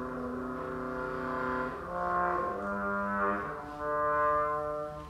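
Small chamber wind ensemble of clarinets, flute and brass playing held chords that change every second or so, starting together at once.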